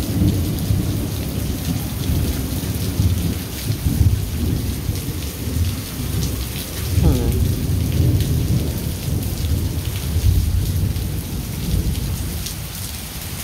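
Thunder rolling long and low, swelling and fading several times, over the steady hiss of heavy rain.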